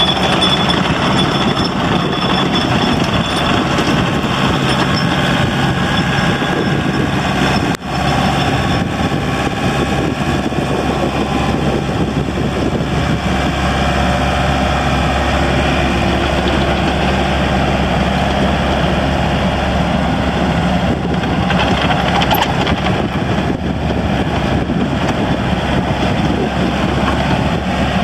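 Daewoo Solar 55V midi excavator's diesel engine running steadily under load while the machine travels and turns on its tracks, with a momentary dip in level about eight seconds in.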